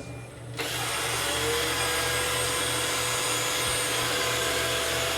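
iRobot Roomba 675 robot vacuum starting a cleaning run: its suction fan and brush motors start up about half a second in and then run steadily.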